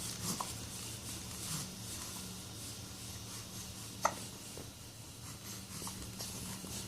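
Baby hiccuping: one short, sharp hic about four seconds in, over faint rustling and a low steady hum.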